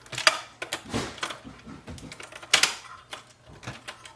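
Irregular plastic clicks and knocks of cable connectors being unplugged and handled inside an Epson WorkForce 2860 printer, with two sharper clicks, one about a third of a second in and one around two and a half seconds in.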